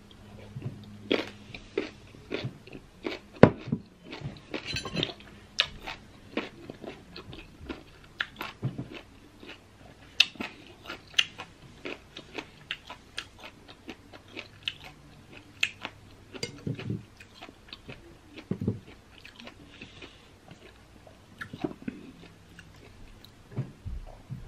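Close-up biting and chewing of raw green baby mango slices: many irregular crisp crunches as the firm, unripe flesh is bitten and chewed.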